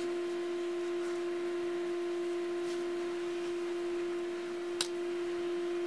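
A steady hum at one pitch, with a fainter overtone, holds level throughout; a single short click sounds near the end.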